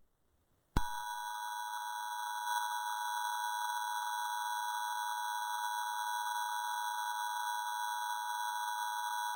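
Emergency Alert System attention signal: a steady two-tone electronic alarm that starts just under a second in and holds unchanged.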